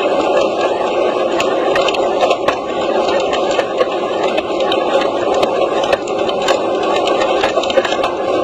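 Continuous loud rushing noise of a rockfall's dust blast sweeping over the microphone, with scattered small ticks and clicks of flying debris.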